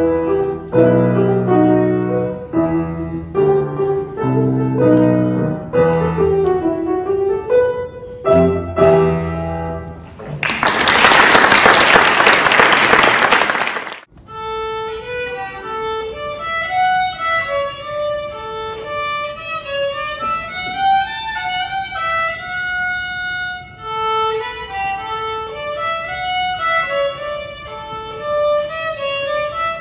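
A grand piano piece ends about ten seconds in and the audience applauds for a few seconds. A solo violin then plays a melody, with no piano behind it.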